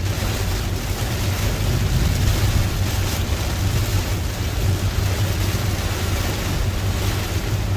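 Heavy rain hitting a car and tyres running through standing water on a flooded road, with a steady low rumble from the car, heard from inside the cabin.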